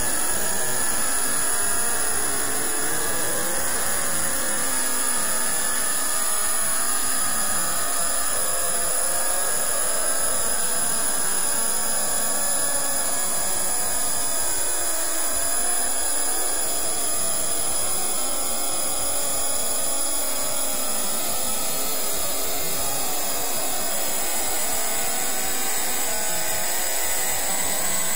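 A steady rushing noise, even in loudness throughout, with faint tones wavering slowly in pitch through it.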